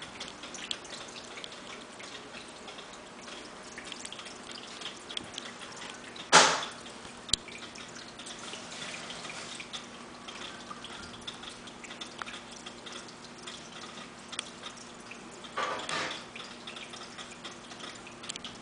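Steady trickling and dripping from a small terrarium waterfall filter. A brief loud noise comes about six seconds in, and a weaker one near sixteen seconds.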